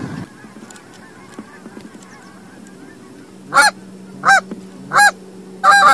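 Goose honks: faint calls at first, then from about three and a half seconds in a run of loud, evenly spaced honks, about one every 0.7 seconds.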